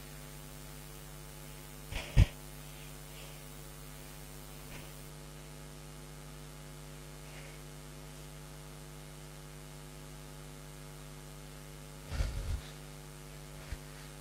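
Steady electrical mains hum. A few short puffs of heavy breathing sound over it, about two seconds in and again near the end.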